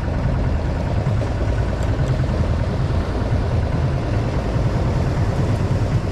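A boat's engine running steadily, a low, even drone with no change in speed.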